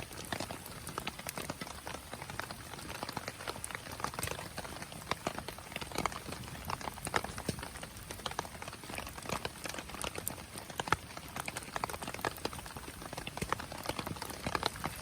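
Wood fire crackling, with irregular sharp pops and snaps over a soft hiss.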